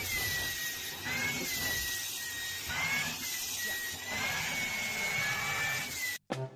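Vacuum cleaner running with its hose nozzle held against a cat's fur: a steady rushing hum with a high whine that dips and rises in pitch several times, cutting off suddenly near the end.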